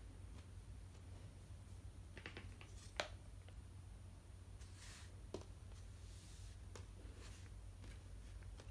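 Quiet handling of a cotton cloth being fitted to a plastic flat-head floor mop: fabric rustling, one sharp knock about three seconds in as the mop head meets the wooden floor, and a smaller knock about two seconds later, over a steady low hum.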